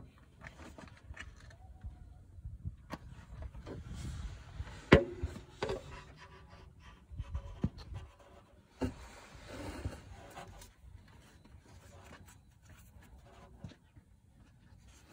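Scattered clicks, taps and scraping of hands and metal working at the gearshift linkage on the gearbox, where plastic cable ends are clipped onto the selector levers, with one sharp knock about five seconds in.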